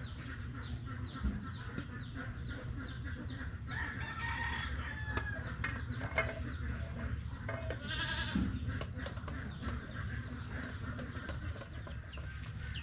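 A rooster crowing once, about four seconds in, with a shorter call about eight seconds in, over a steady low background rumble.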